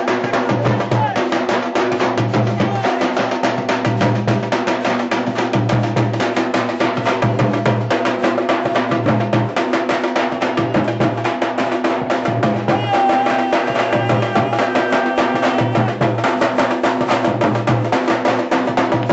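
Festive dance music driven by loud, fast, continuous drumming on a dhol over a steady repeating low beat.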